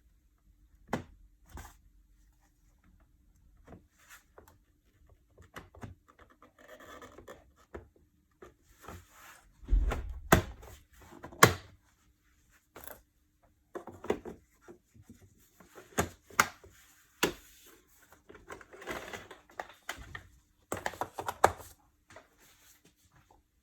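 Irregular clicks, taps and knocks with bouts of scraping and rubbing, as of hard plastic vacuum-cleaner parts being handled and fitted together; the motor is not running.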